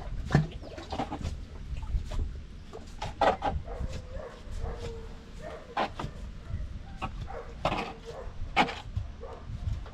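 A dog giving several short barks and yips, spaced irregularly.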